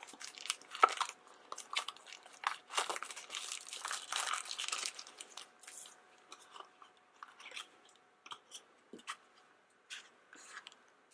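Plastic wrapping on a small toy package crackling and crinkling as it is cut and peeled off, with a dense run of crinkling a few seconds in, then scattered light ticks and rustles.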